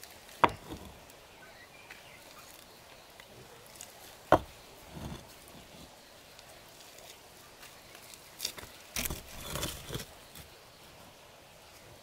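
Hollow concrete blocks set down one on top of another: two sharp clacks about four seconds apart, then a run of scraping and knocking near the end as another block is worked into place against the beam above.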